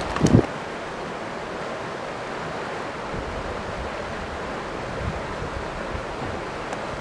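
Steady rush of flowing river water, an even hiss without change. In the first half-second there is a brief low thump of the camera being handled.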